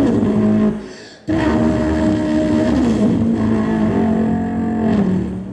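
A man vocally imitating a car engine into a microphone: a steady engine-like note that drops in pitch, cuts out briefly about a second in, then comes back higher and steps down in pitch twice.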